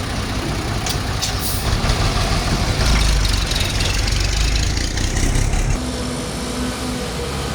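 Hino dump truck's diesel engine running, pulling harder and louder for about three seconds in the middle before dropping back to a lower note.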